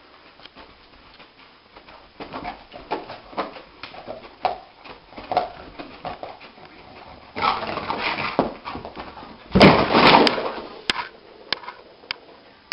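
A yellow Labrador-type dog whimpering and yipping in its sleep, short cries coming about twice a second while its legs paddle. About ten seconds in, a loud scuffle as it scrambles up, followed by a few sharp clicks.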